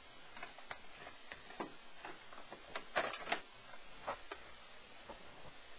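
Rummaging through a drawer: faint, irregular small clicks and knocks of objects being shifted around inside it.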